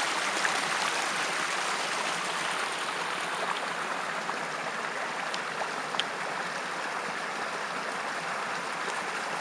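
Stream water running steadily over stones, a continuous rushing, with a brief sharp tick about six seconds in.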